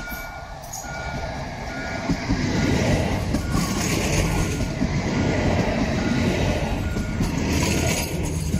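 Light-rail tram passing close by, its wheels rumbling on the rails, growing louder about two seconds in as it draws alongside. A faint two-note beep repeats about once a second throughout.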